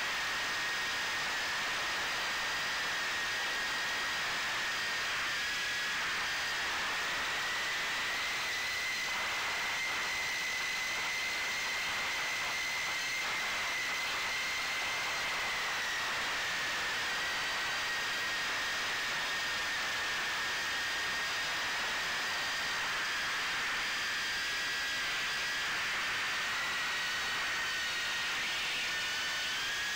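Ducted micro FPV quadcopter's four Emax 1106 brushless motors spinning 2-inch props in flight: a steady high whine over airflow hiss, its pitch drifting slightly up and then down.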